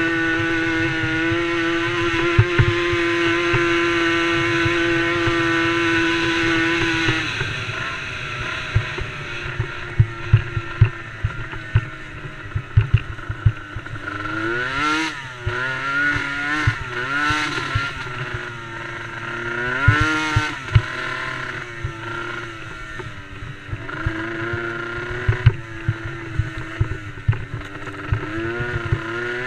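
Small engine of a DRR DRX90 youth race quad held at a steady high pitch for about seven seconds, then dropping off and revving up and down repeatedly, with many sharp knocks throughout.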